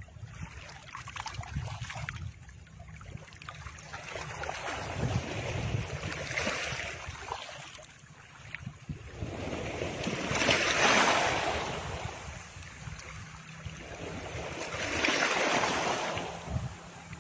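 Background track of ocean surf: waves washing in and out, swelling and fading every few seconds over a low steady rumble.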